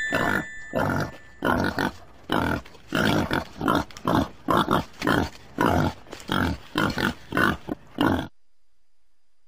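A pig grunting over and over, two or three short grunts a second, stopping abruptly about eight seconds in.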